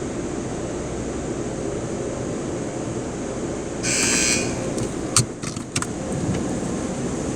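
Steady low rumble of an automatic car wash heard from inside the car, with a short hissing burst about four seconds in and a few sharp clicks soon after.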